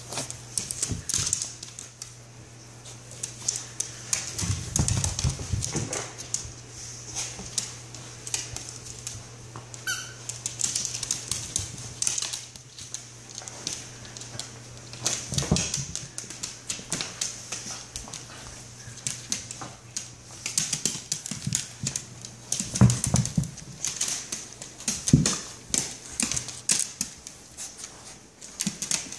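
Scottish terrier's claws clicking and scrabbling fast on a hardwood floor as it plays with its toys, with a few heavier knocks now and then. A steady low hum runs underneath.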